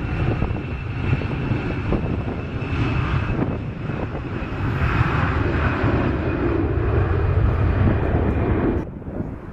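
Boeing 747-400's four Rolls-Royce RB211 turbofan engines running loud, a deep rumble under a steady high whine. It swells about halfway through and cuts off abruptly near the end.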